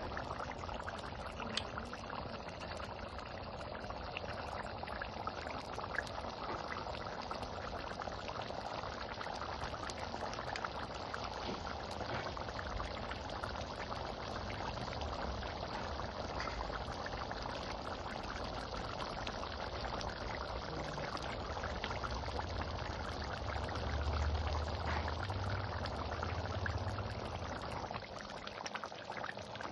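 Steady hiss and bubbling of liquid cooking in a pan, with a low rumble swelling briefly near the end.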